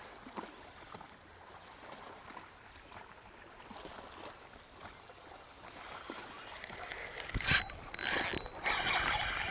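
A fishing reel cranked quickly after a hookset: mostly faint small sounds for about seven seconds, then a sudden sharp noise as the rod is swept back and the line comes tight, followed by rough mechanical winding of the reel.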